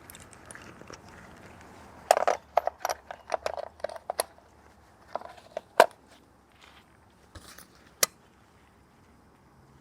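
Hand tools being gathered and set down: a quick run of clinks and clatters about two seconds in, then two single sharp clicks later on.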